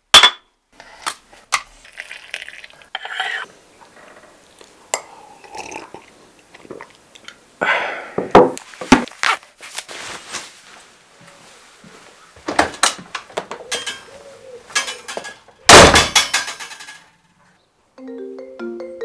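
Kitchen clatter: crockery and cutlery clinking and knocking in sharp, scattered hits, with the loudest clatter about sixteen seconds in.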